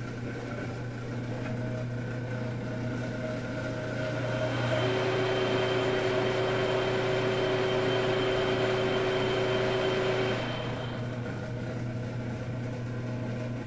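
Metal lathe running with no cut, its motor and spindle humming steadily as the chuck spins a brass valve part while it is checked for runout. A steady whine rises about four seconds in and eases after about ten seconds, and the lathe stops at the end.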